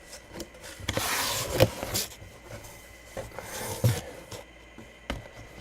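Sealed cardboard box being opened: the seal slit and cardboard rubbing and rasping about a second in and again past three seconds, with a few sharp knocks as the box is handled.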